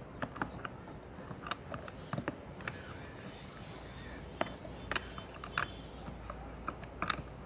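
Irregular plastic clicks and taps of an action camera's waterproof case being handled and fitted onto a helmet-mounted J-hook mount, a dozen or so sharp clicks spread unevenly.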